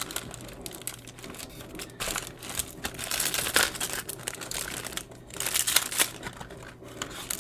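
Packaging being opened by hand: irregular crinkling and rustling of plastic and paper wrapping, busiest in the middle.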